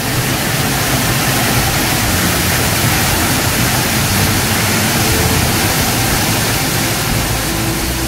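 Tall plunge waterfall in high flow: a steady, loud rush of falling water crashing into the pool below.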